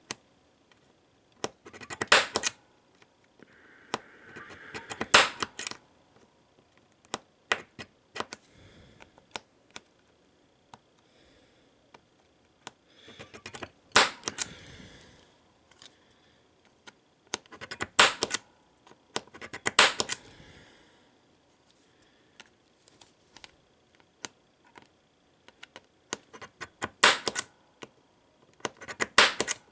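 Spring-loaded automatic center punch firing against the bent corner of an iPad Air's aluminium frame, a sharp snap every few seconds with lighter clicks between, as the dent is knocked back into shape.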